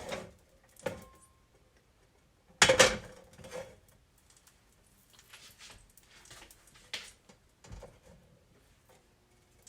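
A pan being handled on an electric stovetop: two loud knocks with a short metallic ring, right at the start and about three seconds in, a lighter knock about a second in, then scattered light clicks and taps.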